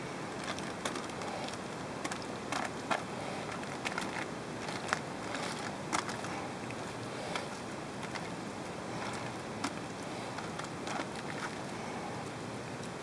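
Ground-meat kebab patty sizzling on a foil-lined grill: a steady hiss with irregular sharp crackles.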